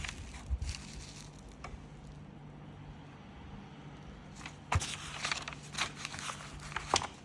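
Scattered clicks, taps and rustles over a faint steady low hum, thickening into a busier run of clicks in the second half.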